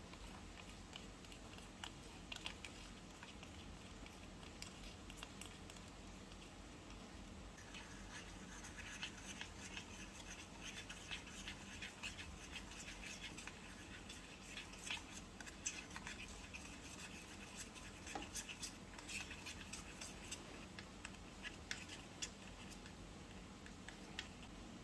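Tiny metal spoon stirring a mixture in a miniature stainless-steel bowl, scraping and clinking faintly against the metal. It starts as scattered ticks and becomes a denser run of scraping clicks about a third of the way in.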